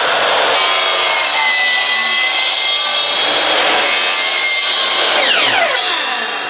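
Power saw cutting a vinyl floor plank: a loud, steady cut. Near the end the trigger is let go and the motor's whine falls as the blade spins down.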